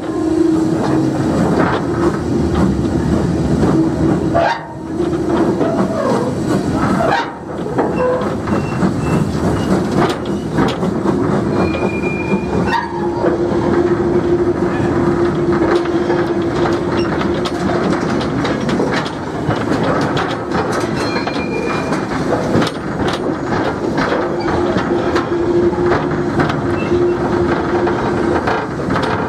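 Open passenger wagon of a heritage steam train rattling and clattering as it runs along the harbourside track, with many short knocks from the wheels over rail joints: a rough, bone-shaking ride.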